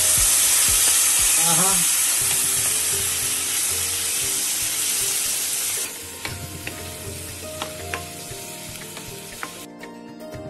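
Loud sizzling as cooked pineapple pieces and pineapple purée are poured into hot oil and spice tempering in a pan. About six seconds in, the sizzle drops to a quieter hiss with scattered clicks of a wooden spatula stirring, and the hiss cuts off near the end.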